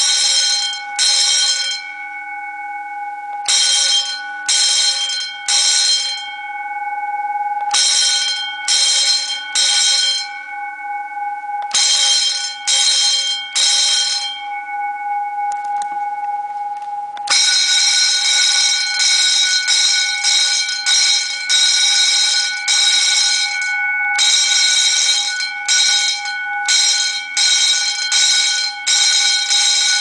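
Electric alarm bell driven by a digital school-bell timer, ringing in short groups of three strokes about every four seconds, then switching to a fast continuous ringing about halfway through.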